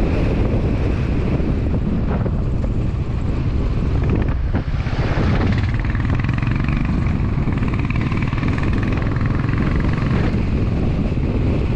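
Motorcycle being ridden at road speed: a steady engine drone mixed with rushing wind.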